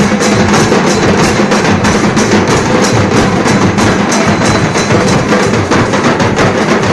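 A group of drummers beating large round drums and smaller white-headed drums with sticks together, a loud, fast, steady rhythm of stick strokes.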